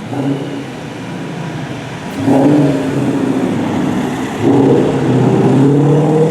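Ford Mustang GT's V8, tuned to 800 hp as a Clive Sutton CS800, accelerating hard. The engine note surges louder about two seconds in and again after about four and a half seconds.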